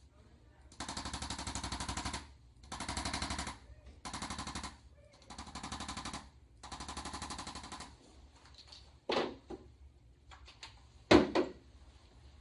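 Electric percussion instrument giving five bursts of rapid-fire pulses, each about a second long, during a chiropractic treatment. Near the end come two sharp knocks, the second the loudest.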